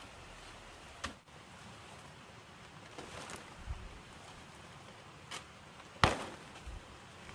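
Machete blows chopping into banana plant stalks: a handful of separate sharp cuts a second or two apart, the loudest about six seconds in.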